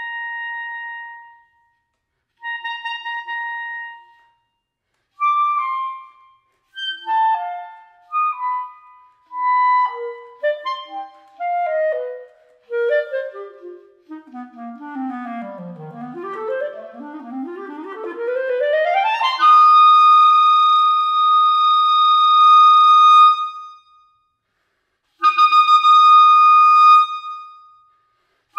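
Solo clarinet playing a contemporary piece in short phrases broken by silences: two brief held notes, then scattered fragments, then a fast run sweeping down into the low register and straight back up. The run lands on a loud held high note about two-thirds of the way in, followed by one more held note near the end.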